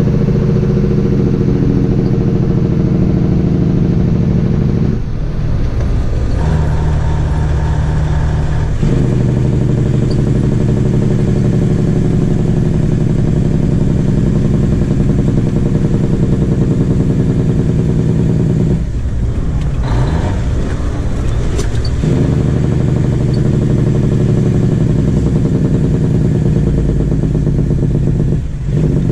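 Heavy truck's diesel engine running under way, heard from the cab. Its steady low note dips and changes pitch several times.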